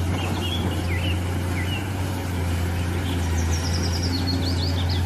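Excavator engine running steadily with a constant low hum, and birds chirping over it. It starts and stops abruptly, as a sound clip cut in.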